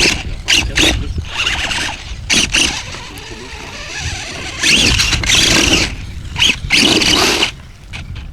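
Radio-controlled off-road scale car's motor and drivetrain whining in short throttle bursts, the longest about five seconds in, over a low rumble of wind.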